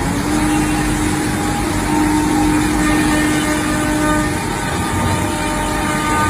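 Selexx Pal CNC router running: a loud, steady machine noise with a steady hum-like tone over it as the spindle head and gantry travel over the table.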